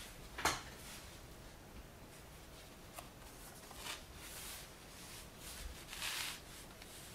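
Photo cards being handled and slid across a table: a few short rustles and taps, the sharpest about half a second in and a longer rustle near the end.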